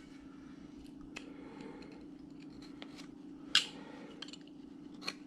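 Hand carving tool slicing wood: a few short, crisp cuts, the sharpest about three and a half seconds in and another near the end, over a steady low hum.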